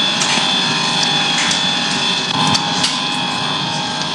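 Reel-to-reel cinema film projector running with a steady mechanical whir and clatter, with a few louder sharp clicks.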